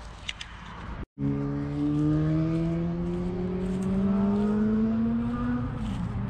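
A motor vehicle's engine accelerating, its pitch climbing steadily for about four seconds and then dropping near the end, as at a gear change. Before it, about a second of rustling and clicks from hands handling a bike pannier.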